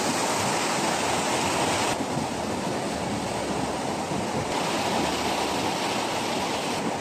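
Whitewater of the Chemal River rushing over rocks in rapids and below the old hydro dam's spillway: a steady, even rush. Its tone changes abruptly about two seconds in and again about halfway through.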